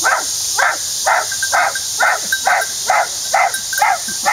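A child imitating a dog's barking: about ten short barks in a steady run, roughly two a second.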